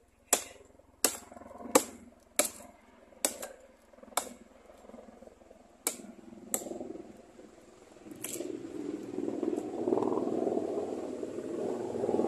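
A machete blade chopping into a rotten tree trunk: about nine sharp chops, close together at first and then more spaced out, as the log is hacked open to reach a wild stingless bee nest. From about eight seconds in, a steady, louder rustling rumble takes over.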